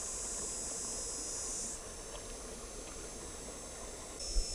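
Steady high-pitched insect buzzing that cuts out about two seconds in and comes back near the end, over faint low background noise. A brief knock near the end.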